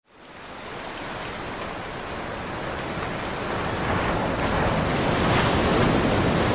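Sea waves breaking and washing over a rocky shore, a rushing surf that fades in from silence and grows louder, with a bigger surge about four to five seconds in.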